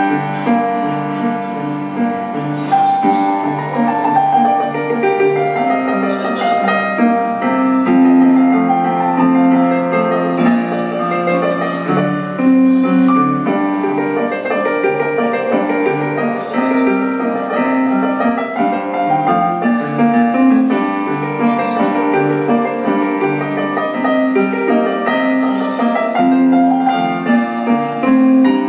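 Digital piano playing a continuous tune through a small amplifier, a repeating low left-hand figure under a melody in the right hand.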